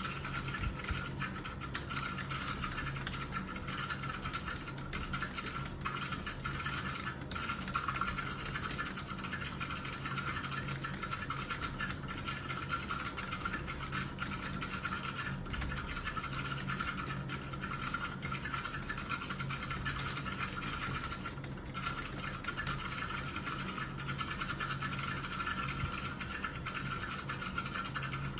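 Fast, continuous typing on a stiff, hard-action computer keyboard: a dense, unbroken clatter of key presses, with a steady low hum underneath.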